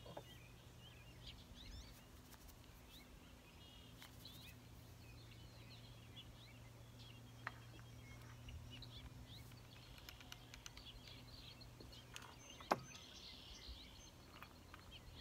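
Quiet outdoor ambience: small birds chirping now and then over a faint steady low hum, with a few light handling clicks and one sharp knock near the end.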